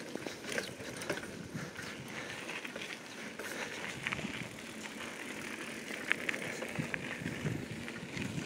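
Bicycle being ridden, with steady tyre and road noise and scattered light clicks and rattles.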